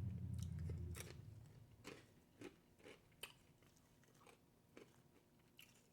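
Soft, close-miked chewing with a few scattered wet mouth clicks. A low closed-mouth hum fades out in the first second.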